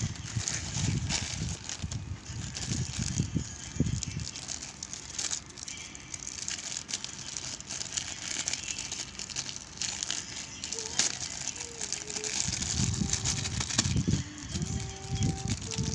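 Plastic packaging crinkling and rustling as hands pull open a plastic mailer bag and the clear plastic bag inside it, with low handling bumps near the start and again near the end.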